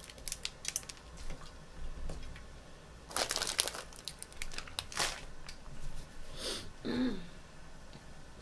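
Eating and handling food at a table: crinkly crackling and crunching with scattered sharp clicks, the loudest bursts about three seconds in and again around five seconds.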